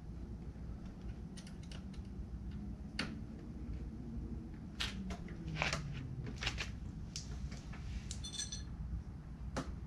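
Hand tools clicking and clinking against metal and plastic while a ram air scoop's fasteners are worked on, a scatter of irregular sharp ticks and light knocks. A faint low hum drifts down in pitch partway through.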